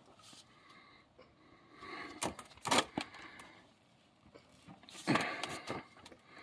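A few short knocks and scrapes of a wrench being worked on a stuck oil drain plug, which does not break loose.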